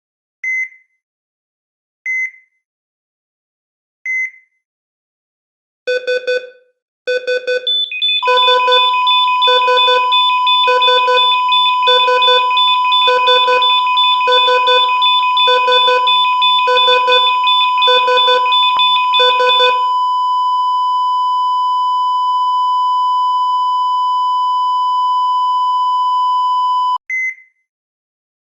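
ECG heart-monitor beeps signalling a cardiac arrest: single heartbeat beeps about every two seconds, then a burst of rapid beeps, then a steady flatline tone with an alarm pulsing about once a second over it. The alarm stops about 20 seconds in, the flatline tone carries on alone and cuts off suddenly near the end, and the single heartbeat beeps start again.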